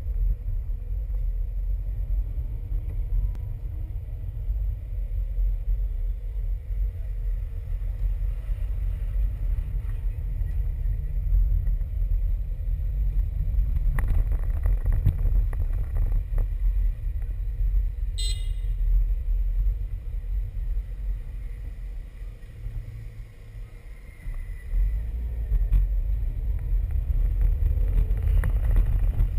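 Low rumble of a car driving slowly through town streets, heard through a camera mounted on its bonnet. The rumble eases off briefly about two-thirds of the way through, and a short high-pitched sound cuts in once about eighteen seconds in.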